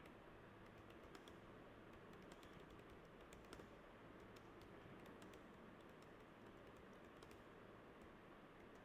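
Faint typing on a computer keyboard: irregular key clicks over a steady low background hum.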